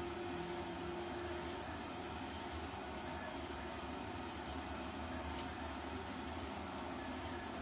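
Delta 3D printer running a print: a steady whir of its belt-driven stepper motors and cooling fans. A steady motor tone holds for the first second and a half and then drops away as the move changes, and there is one faint click about five seconds in.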